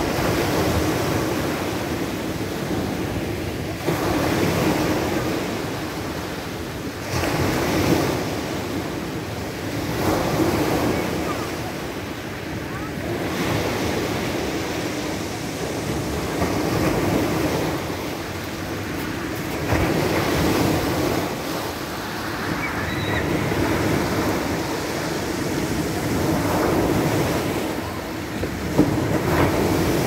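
Small sea waves breaking and washing up over a pebble beach. The surf swells and falls back every few seconds.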